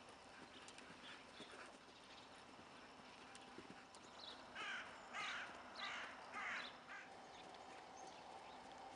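Faint hoofbeats of a cantering horse on a soft arena surface. A little past halfway, a bird gives four harsh calls about half a second apart, louder than the hoofbeats.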